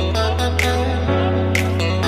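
Background music: a groove with a sustained bass, plucked guitar-like notes and a regular beat striking about once a second.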